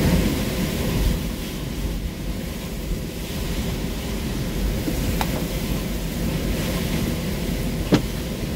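Hurricane wind and driving rain buffeting a vehicle, heard from inside the cab: a steady rushing noise with a deep rumble. Two sharp clicks cut through, about five and eight seconds in.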